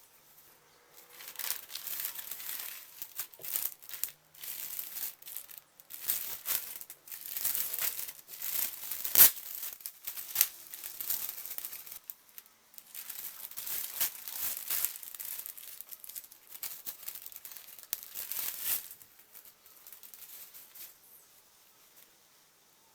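Packaging crinkling and rustling in irregular bursts as it is handled and opened, with one sharp click about nine seconds in.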